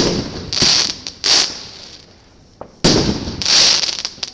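New Year's Eve fireworks going off: a sharp bang at the start and another just before three seconds in, each followed by short bursts of hissing crackle.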